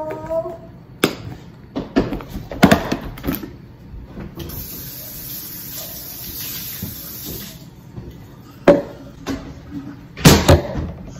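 Kitchen handling sounds: a plastic snack container's lid clicking shut and the container knocking down on a stone countertop, several sharp knocks, then a steady hiss for about three seconds, and a loud clatter near the end as a plastic cup is set back down.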